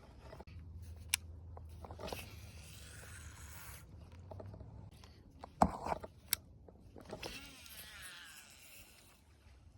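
Fishing rod and reel being cast and cranked: two stretches of zipping whir, with sharp clicks in between.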